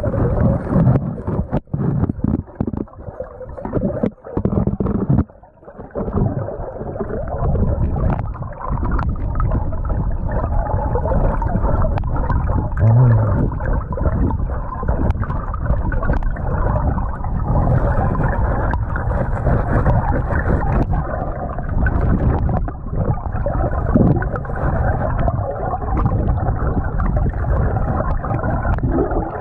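Muffled underwater rush and gurgle of creek current, with knocks and scrapes from a metal pry bar and gloved hands working gravel in bedrock cracks, the knocks thickest in the first several seconds.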